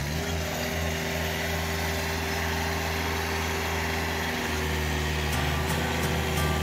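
Arbos 3050 tractor's diesel engine running steadily while it pulls a plough through the soil.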